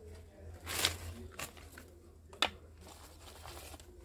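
Plastic of a soda-bottle bait hive crinkling as it is handled, with a rustling swish about a second in and two sharp clicks about a second apart.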